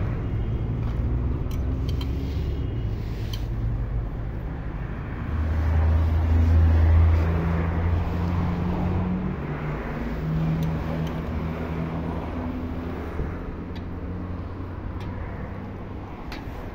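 Low rumble of a motor vehicle's engine running close by, swelling louder about five seconds in and easing off after eight, with a few light metal clinks from a ladle scooping plov out of a cast-iron kazan.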